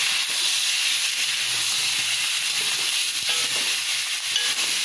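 Turkey meat with tomatoes and onions sizzling steadily as it fries in a wok, stirred with a spatula.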